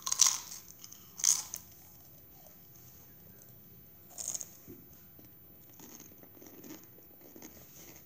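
A Doritos tortilla chip being bitten and chewed: loud crisp crunches right at the start and again about a second in, another about four seconds in, then quieter chewing.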